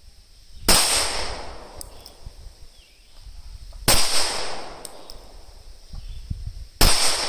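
Three 9mm shots from a Glock 19 Gen 5 pistol, fired slowly about three seconds apart. Each shot has a short ringing tail.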